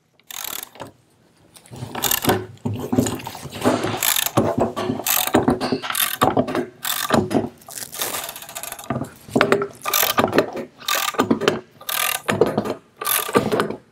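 Socket ratchet clicking in repeated strokes with short pauses, turning the forcing bolt of a crankcase splitter that pushes on the crankshaft and pulls a motorcycle's vertically split crankcase halves apart.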